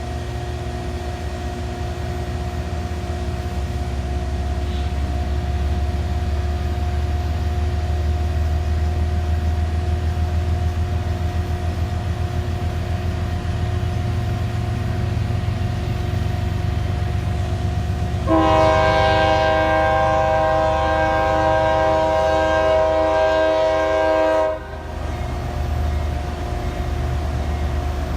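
Diesel locomotive engine running steadily, then about eighteen seconds in its horn sounds one long blast of about six seconds, a chord of several notes, cut off sharply.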